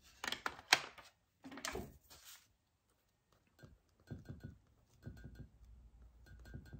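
Graphite-and-clay drawing pencil scratching on sketchbook paper in short, repeated strokes. A few sharp knocks, as pencils are picked up and set down, come in the first two seconds.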